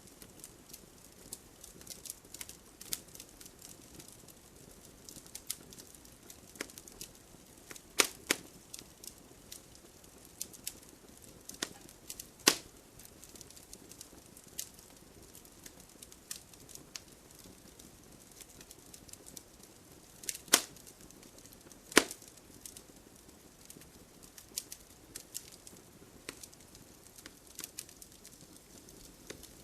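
Wood fire in a fireplace crackling: a steady scatter of small snaps over a soft hiss, with a few louder pops about eight, twelve, twenty and twenty-two seconds in.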